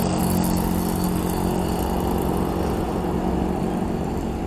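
A motor engine running steadily at one pitch, its hum weakening near the end.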